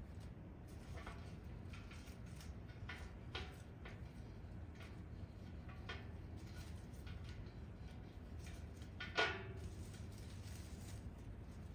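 Light knocks and clicks of household items being handled and set down, over a steady low hum, with one louder clink that rings briefly about nine seconds in.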